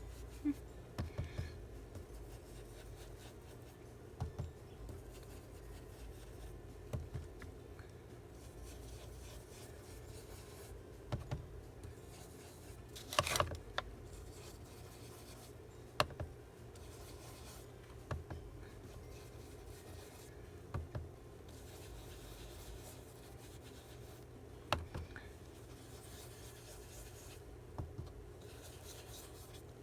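Paper journal cards being distressed by hand: quiet rubbing and scraping against the card, with a short tap or knock every few seconds, the loudest about 13 seconds in.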